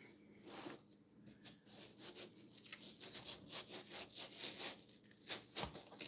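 Kitchen knife scraping and cutting through watermelon rind in a run of irregular rasping strokes as the skin is peeled off, one stroke about five seconds in the loudest.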